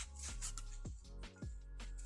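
Background music with a steady electronic beat: deep bass thumps that drop in pitch, repeating a few times a second under sustained notes and crisp high ticks.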